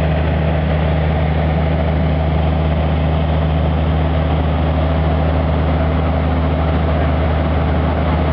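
Fire truck engine running steadily, a constant low drone with no change in speed.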